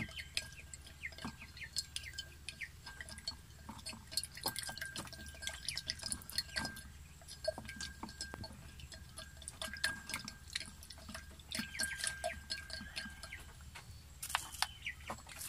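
A plastic teaspoon stirring flour into hot water in a glass, clicking and tapping against the sides in quick, irregular taps with a faint slosh of liquid.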